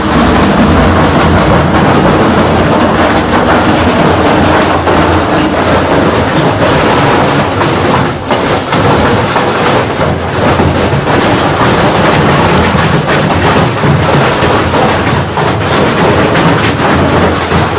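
Washing machine running at full speed with heavy stones inside, making a loud, continuous rattling and banging with many knocks packed together.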